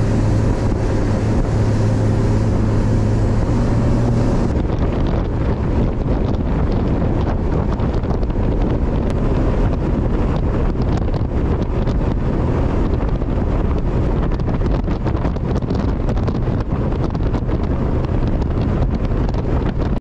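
Bass boat's outboard motor running under way with a steady hum, and heavy wind buffeting the microphone. About four and a half seconds in, the hum fades back and the wind rush takes over.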